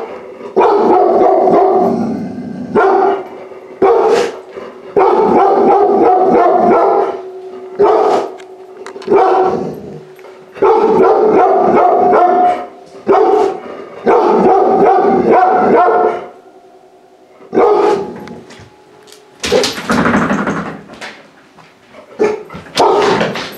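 Large-breed puppy barking over and over in runs of quick barks, each run a second or two long, with short pauses between.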